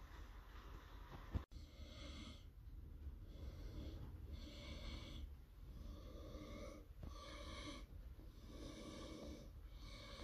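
A person breathing close to the microphone, soft breaths about every second or so, over a faint low hum. There is a single sharp click about a second and a half in.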